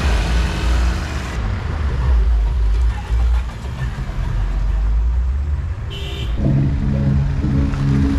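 Motor vehicles driving slowly past, their engines a steady low rumble. About six seconds in, a pitched, pulsing sound with several steady notes joins and carries on.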